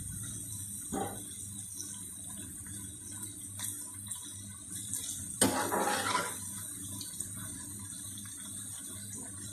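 Pumpkin pakoras deep-frying in hot oil in a steel pan, a steady sizzle. A metal slotted spatula clinks and scrapes against the pan a few times, most loudly a little past halfway.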